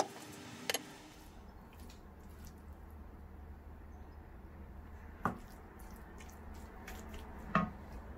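Wooden spoon stirring cooked Swiss chard and chicken in a nonstick frying pan: faint wet stirring, with three sharp knocks of the spoon against the pan, one under a second in, one about five seconds in, and the loudest near the end.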